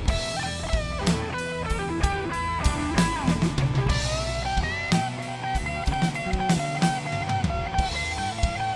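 Blues electric guitar solo with string bends and a repeated held note, over drums and bass.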